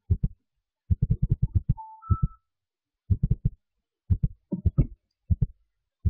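Rapid deep thuds in short bursts of several each, separated by brief pauses, with two short high tones about two seconds in.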